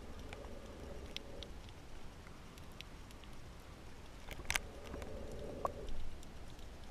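Underwater reef ambience picked up by the camera: a low steady rumble with scattered sharp clicks and crackles, the loudest about four and a half seconds in, and two short swells of hiss, about a second in and around five seconds.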